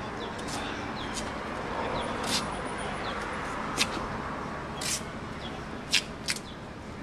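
Street background noise: a steady low hum of traffic, with several short, high, hissy sounds scattered through it.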